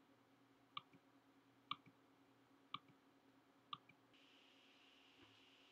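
Four sharp computer mouse clicks, about a second apart, over a faint steady hum.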